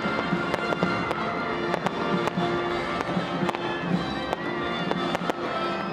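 Aerial fireworks bursting, many sharp cracks and pops, over music with steady held notes.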